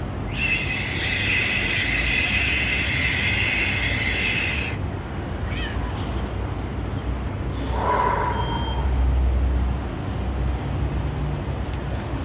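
City street traffic rumbling steadily. Soon after the start a loud hiss with high steady tones runs for about four seconds and cuts off. About eight seconds in a shorter burst with a mid-pitched tone comes as a heavier low rumble swells briefly.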